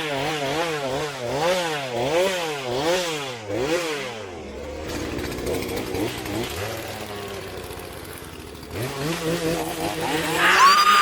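Chainsaw engine revved up and down over and over, about once every second and a half, then settling to a lower, steadier running sound before rising again near the end. A high wavering sound comes in just before the end.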